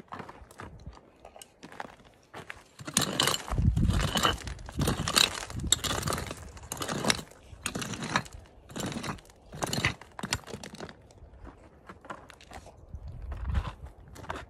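Prospector's hand pick striking and scraping into stony, gravelly ground with crunching rock: about ten blows roughly a second apart, starting about three seconds in. It is digging out a metal detector target.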